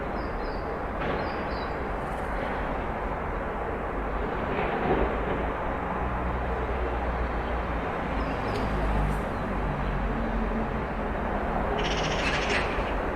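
Street ambience: a steady wash of traffic noise, with birds calling briefly a few times and a vehicle engine running low through the middle.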